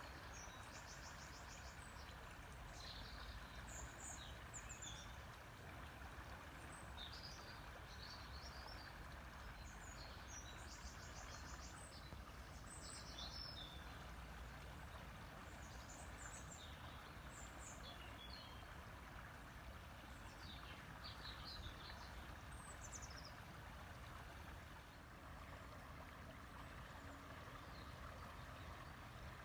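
River water flowing in a steady, faint rush, with small birds chirping and trilling now and then over it. The bird calls stop a few seconds before the end.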